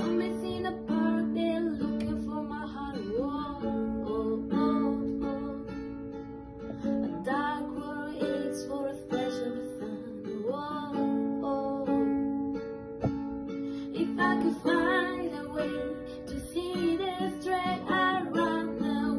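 Acoustic guitar strumming a song accompaniment, with a voice singing over it.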